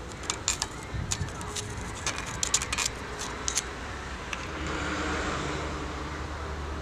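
Light clicks and taps from a steel mattock head being handled on its wooden handle, scattered through the first half, over a steady low rumble that swells in the second half.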